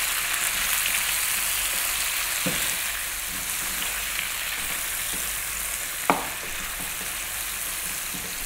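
Lamb chunks with sliced onions and fresh chili sizzling steadily in oil in a nonstick wok while being stirred with a wooden spatula, with a short knock about six seconds in.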